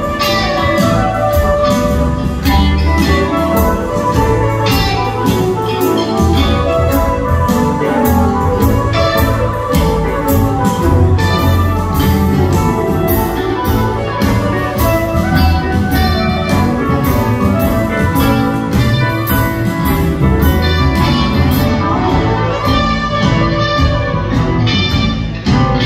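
Live band playing a full, steady groove with upright bass and piano, with regular drum hits, recorded from within the audience.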